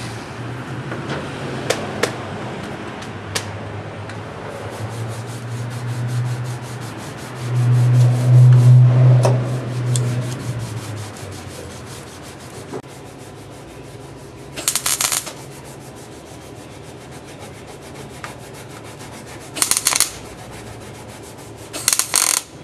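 MIG welder tacking on a Jeep CJ-5's steel body panel over rust holes: three short bursts of arc crackle in the second half, the last two close together near the end. Earlier a low hum swells, loudest around eight to ten seconds in.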